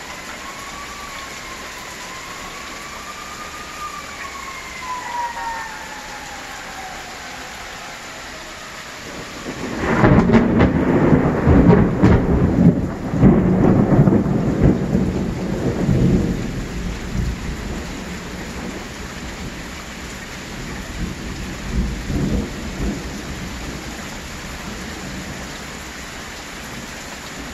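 Heavy rain hissing steadily through a thunderstorm. About ten seconds in, a loud clap of thunder breaks into a crackling rumble lasting some six seconds, and a smaller rumble follows near twenty-two seconds. In the first few seconds a wavering tone glides down and fades.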